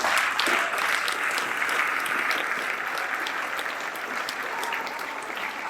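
An audience of students and staff applauding in a large hall, dense steady clapping that eases off slightly toward the end.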